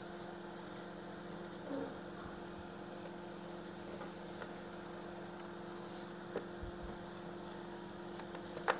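Steady electrical hum, with a few faint taps and one sharper click near the end as a tool works a triac off the washing machine's control board.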